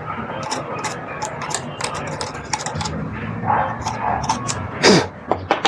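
Small parts of a sewing machine's shuttle hook assembly being handled and cleaned: many quick light clicks and taps. About five seconds in comes the loudest sound, a brief squeal that drops sharply in pitch.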